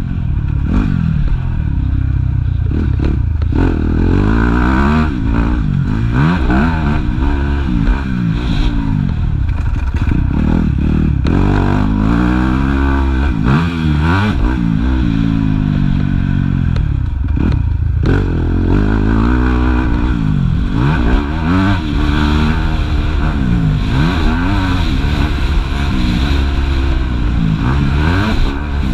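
Yamaha YZ250F four-stroke single-cylinder motocross engine, heard from on the bike, revving hard and easing off over and over, its pitch rising and falling every second or two as the rider accelerates, shifts and slows along the track.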